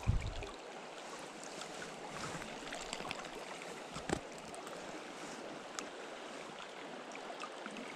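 Steady rush of a river rapid flowing past, with a thump right at the start and a small knock about four seconds in.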